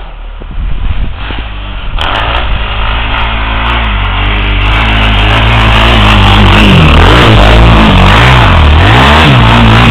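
ATV engine running, louder and steadier from about two seconds in, with its revs dropping and rising several times near the end.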